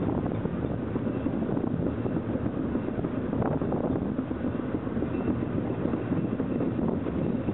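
Narrow-gauge steam train running, heard from an open carriage window as it pulls out: a steady rumble of the train mixed with wind buffeting the microphone.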